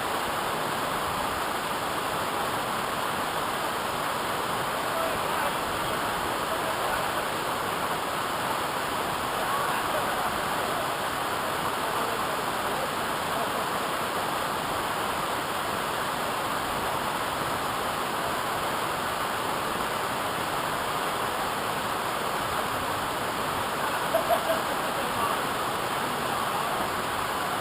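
Waterfall rushing steadily, an even roar of falling water, with a few brief louder sounds near the end.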